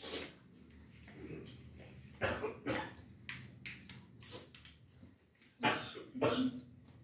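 A boy coughing while eating pani puri: a few short coughs, loudest as two quick pairs about two seconds and six seconds in.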